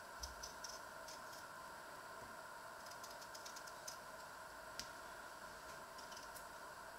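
Faint, irregular small clicks and scrapes of a kitchen knife peeling a potato, the strongest a little before the five-second mark, over a steady hum.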